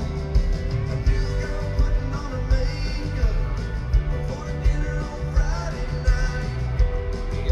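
Live country-rock band playing through an arena PA, heard from the audience: a steady drum beat about twice a second under electric guitars, with a male lead vocal.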